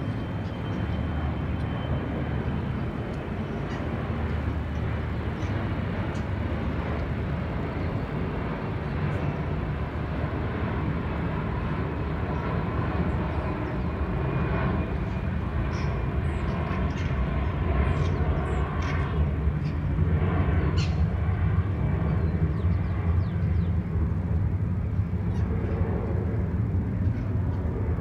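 Steady low outdoor rumble, with faint, short high calls of feral parrots scattered through the second half.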